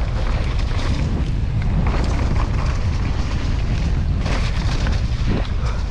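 Mountain bike descending a wet dirt downhill trail at speed: wind rushes over the GoPro's microphone with a steady low rumble, over tyre noise and a rapid run of knocks and rattles from the bike on rough ground.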